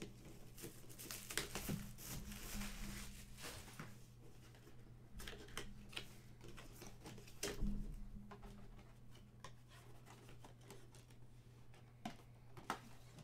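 A cardboard collectible-figure box being opened by hand: packaging rustling, crinkling and tearing, with scattered clicks and taps, over a faint steady low hum.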